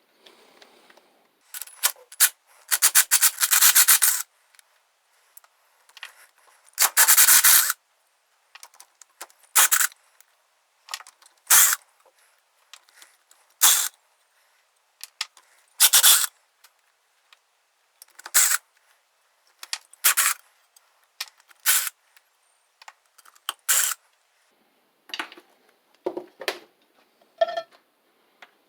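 Ratchet wrench clicking in short strokes about every two seconds, with two longer runs of rapid clicks in the first third, as bolts are backed out of a Briggs & Stratton WMB engine during teardown.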